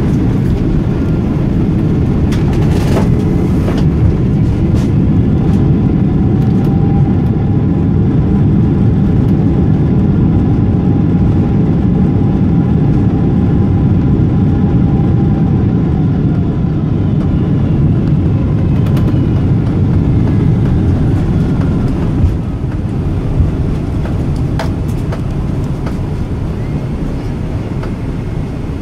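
Loud, steady rumble of a Boeing 777-200's engines and airflow heard from inside the cabin during landing. It eases off gradually over the last several seconds, with two brief knocks a little before that.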